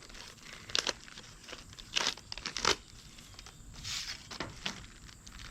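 Packaging being handled: crinkling and rustling with a few sharp crackles scattered through.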